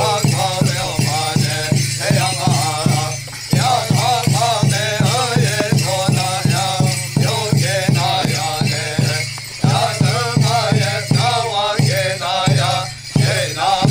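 A chorus of men chanting a Hopi dance song over a steady hand-drum beat of about three strokes a second, with the jingling and rattling of the dancers' rattles and bells. The drum drops out briefly a few times.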